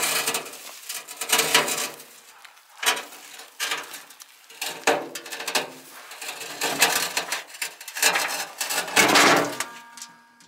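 Heavy stones scraping and knocking as they are shifted, in a series of bursts about one to two seconds apart.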